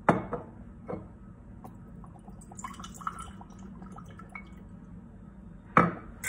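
Vinegar poured from a glass bottle into a small glass jar already holding oil, trickling and gurgling for about a second midway. Sharp knocks at the start and near the end as glass bottles are set down.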